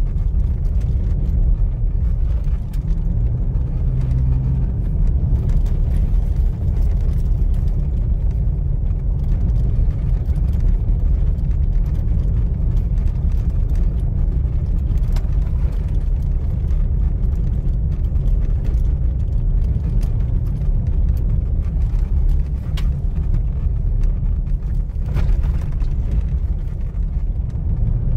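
Inside the cab of a 2021 Toyota Hilux on a dirt road: steady low road-and-tyre rumble with scattered light knocks and clicks from under the dashboard. The knocking is the recurring steering-column noise, felt as small knocks in the steering wheel, which the mechanic calls a chronic defect of the 2021 Hilux.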